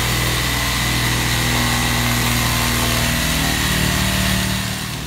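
A small engine running steadily at an even speed, with a low hum under a wide hiss.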